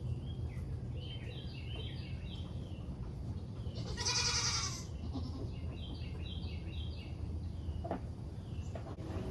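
A Nigerian Dwarf goat bleats once, loudly, about four seconds in, over a steady low rumble. Short runs of high chirping notes come twice, before and after the bleat.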